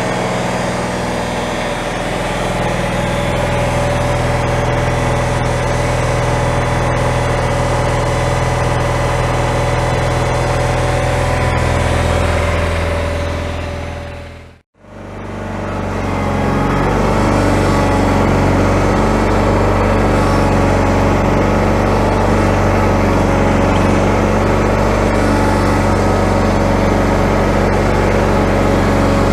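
The Kohler Magnum 18 engine of a 1991 Cub Cadet 1862 garden tractor running steadily. About halfway through, the sound cuts out for a moment and then the engine running resumes.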